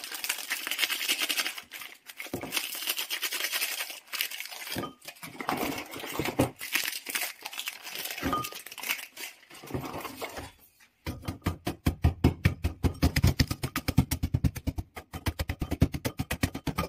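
Foil Oreo cookie wrappers crinkling and tearing as packets are opened and the cookies shaken into a ceramic bowl. From about eleven seconds in, a wooden stick pounds the cookies in the bowl with rapid, even thuds, crushing them to crumbs.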